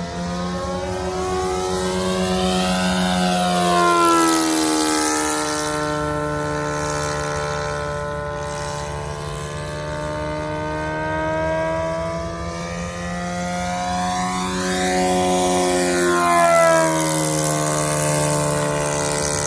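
O.S. Gemini 160 twin-cylinder four-stroke model-airplane engine running at full throttle in flight, with its propeller buzzing. It makes two close passes, about 4 s in and again past the middle, each rising in pitch as it comes in and dropping as it goes by. The pilot judges it to be running a little lean.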